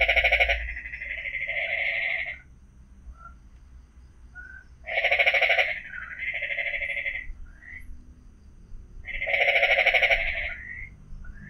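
A frog calling loudly three times, about every four and a half seconds; each call is a rapid pulsing croak about two seconds long, in two parts. A faint steady high insect-like drone and a few short chirps sit between the calls.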